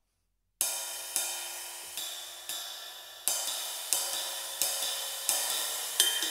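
Riveted Alexino Old Stamp sKy cymbal played with a wooden drumstick. It starts about half a second in, and a stroke lands every two-thirds of a second or so, about nine in all. Each stroke rings on in a bright wash that the next stroke overlaps, with the rivets sizzling.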